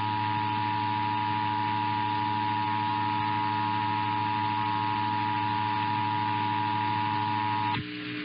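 Emergency Alert System two-tone attention signal held steady over a humming, hissy broadcast signal, cutting off shortly before the end.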